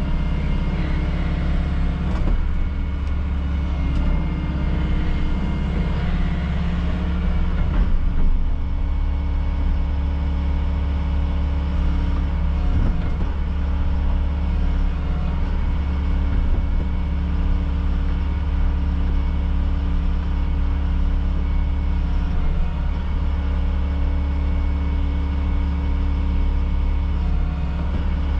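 Volvo excavator's diesel engine and hydraulics running, heard from inside the cab. The sound shifts and swells as the arm and bucket are worked in the first eight seconds or so, then settles to a steady drone.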